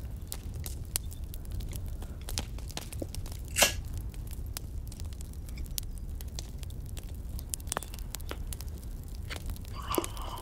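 Crackling campfire: a steady low rumble with many small, sharp pops and snaps scattered irregularly, and one louder click about three and a half seconds in.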